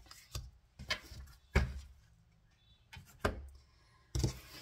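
Tarot cards being handled and laid down on a wooden table: about five short knocks and card slaps, the loudest about a second and a half in and again near the end.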